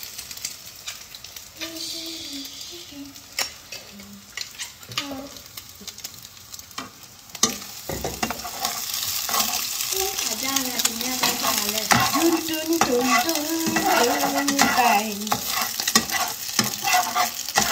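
Scrambled egg frying in a non-stick pan with no cooking oil, sizzling while a metal slotted spatula scrapes and taps against the pan as the egg is stirred. The sizzle grows louder about halfway through.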